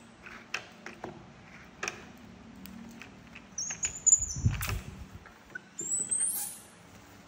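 Thin, very high-pitched monkey squeals, twice: one about halfway through and a rising one near the end. Between them come small clicks of lotus seed pods being handled and chewed, and a soft thump a little after the first squeal.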